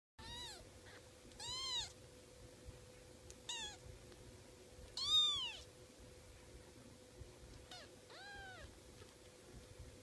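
Very young kitten mewing: six short, high, thin mews, each rising then falling in pitch, the loudest about five seconds in.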